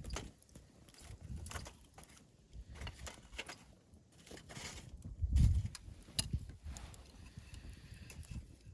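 Wood campfire crackling, with scattered sharp pops, and a low rumble that swells about five and a half seconds in.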